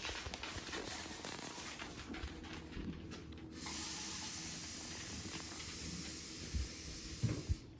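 A steady hiss that grows stronger about halfway through and cuts off suddenly at the end, with a few faint knocks.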